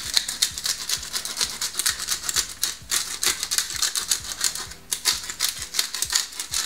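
Pepper grinder being twisted: a fast, crisp clicking from its grinding mechanism, pausing briefly twice.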